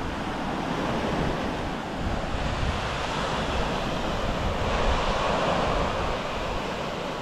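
Sea waves washing onto the shore, with wind buffeting the microphone; the surf swells louder about five seconds in.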